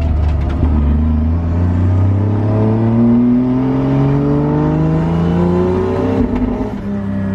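Toyota 1JZ-GTE VVT-i turbocharged inline-six accelerating, its note rising steadily for several seconds, then dropping sharply about six seconds in. The engine is running very rich on an untuned setup.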